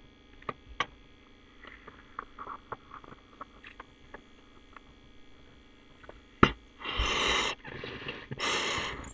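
A person blowing into the open fitting of a homemade plumbing-fitting air horn to inflate its balloon: two long breaths of rushing air in the last few seconds, with a fainter breath between them. Small clicks and taps of handling the fittings come before, and one sharp click just before the blowing.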